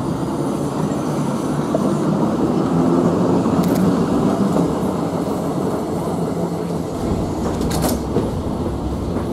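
London Metropolitan tramcar 331, a double-deck electric tram, running past close by: a steady rumble from its motors and its wheels on the rails, with a couple of sharp clicks, one midway and one near the end.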